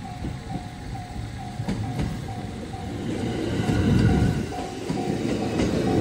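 JR West 227 series 1000 two-car electric train passing over a level crossing. Its rumble and wheel clacks over the rail joints build from about three seconds in and are loudest about four seconds in. Throughout, the crossing's electronic warning bell rings steadily, about twice a second.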